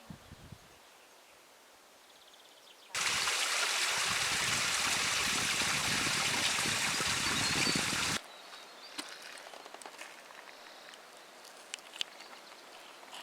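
A rushing mountain stream, loud and steady, cutting in suddenly about three seconds in and cutting off just as suddenly about eight seconds in. Before and after it, faint outdoor quiet with scattered light ticks.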